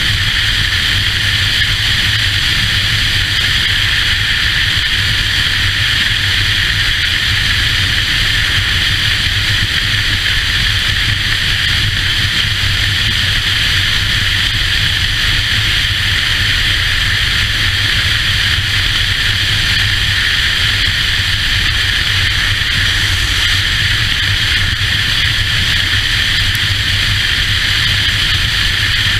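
Touring motorcycle cruising at a steady road speed: the engine runs with a low, even rumble under a constant rush of wind noise on the microphone.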